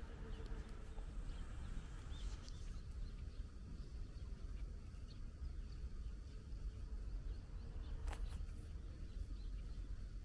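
Outdoor ambience: a steady low rumble with a few faint, short high chirps, and one sharp click about eight seconds in.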